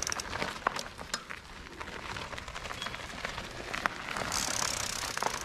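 Mountain bike tyres rolling and crunching over loose gravel through a turn, with scattered small clicks and grit pops and a louder stretch of hiss a little after four seconds in.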